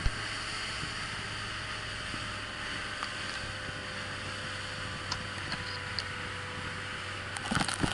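Outboard-powered fishing boat running at speed: a steady engine drone under the rush of wind and water on the hull.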